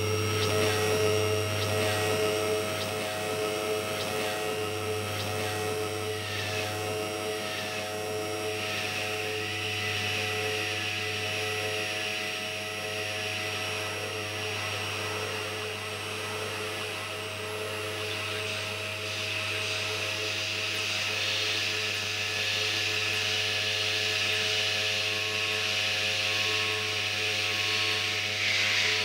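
Experimental electronic noise made with analog machines: a steady low hum under held drone tones. Short falling chirps repeat about twice a second for the first eight seconds, then give way to a hissing noise band that grows louder in the second half.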